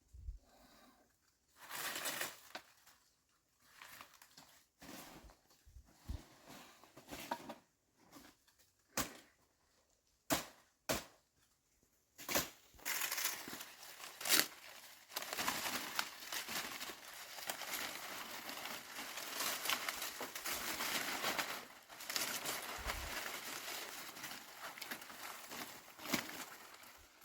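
Crinkling and rustling, in scattered bursts with a few sharp clicks at first, then continuous from about twelve seconds in.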